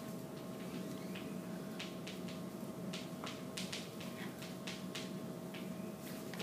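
Chalk on a chalkboard: irregular short taps and scratches as someone writes, over a steady room hum with a faint steady tone.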